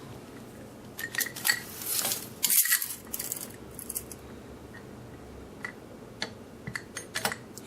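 Scattered light metallic clicks and clinks with a couple of brief scraping rustles, from handling the metal chandelier and a measure while taking its length.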